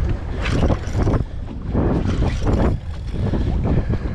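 Wind buffeting the microphone with a heavy, steady rumble, with several short rushes of water along the boat's hull.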